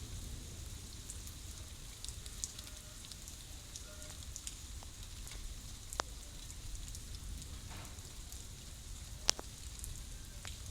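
Steady light rain with scattered raindrops ticking and tapping, and two louder single drips about six and nine seconds in.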